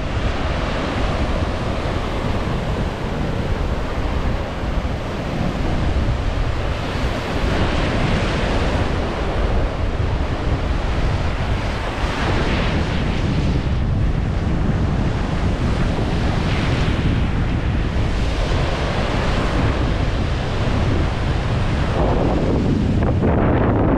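Sea waves breaking over a shallow reef and washing in, surging every few seconds, with strong wind buffeting the microphone.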